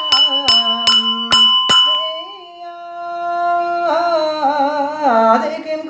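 Buddhist monk chanting a ritual prayer in a drawn-out sung voice over a small bell struck in an even rhythm, a little over two strikes a second. The bell stops about two seconds in, and the chant goes on in long, held, wavering notes.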